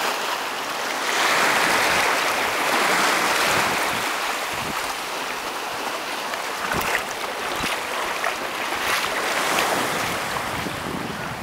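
Small sea waves washing in over rocks and onto a sandy beach: a steady hiss of surf that swells twice and falls back, with a few short clicks in the second half.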